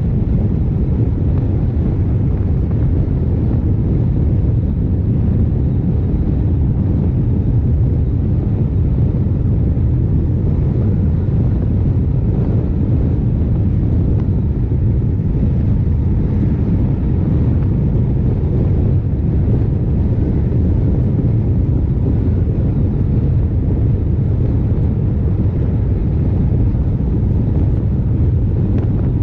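Honda CRF1100L Africa Twin's parallel-twin engine running at a steady cruise, a deep unbroken rumble mixed with wind rush over the microphone.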